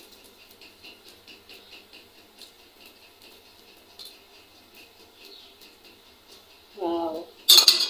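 Faint, quick crackling ticks of oil frying in a pan on a small gas stove. Near the end a short word is spoken, then comes a loud sharp clatter.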